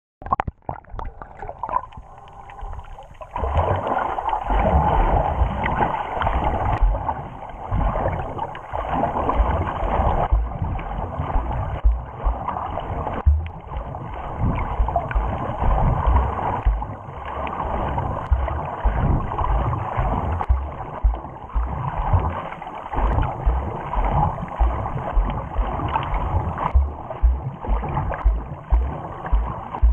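Muffled underwater noise picked up by a submerged GoPro Hero4 Session during snorkeling: water rushing against the camera, growing louder about three seconds in, with frequent low thumps that come several times a second near the end.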